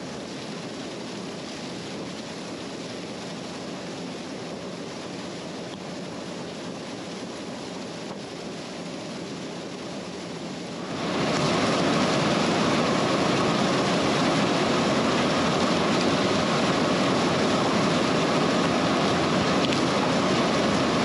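John Deere 9500 combine running steadily while harvesting corn, a constant mechanical drone. The noise gets abruptly louder about eleven seconds in and holds there.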